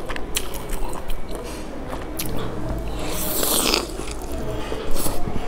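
A person biting into and chewing a browned dumpling dipped in sauce: small wet mouth clicks, with a loud bite about three seconds in.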